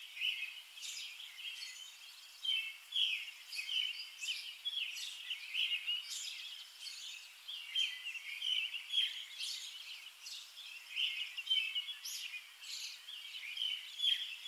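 Small birds chirping and twittering, a steady run of short, high calls coming several a second.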